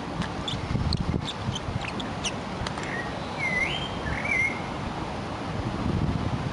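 Wind buffeting the microphone with a steady low rumble, while a small bird calls: a few short high chirps, then two whistled, warbling notes about halfway through.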